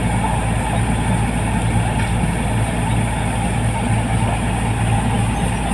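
Rice combine harvester's diesel engine running steadily at constant speed, a loud, unchanging low drone with mechanical clatter.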